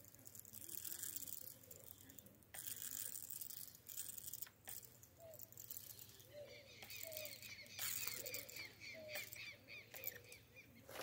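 Birds calling faintly: a quick run of short, repeated chirps about two-thirds of the way in, with a few lower notes among them, over faint hiss and scattered light clicks.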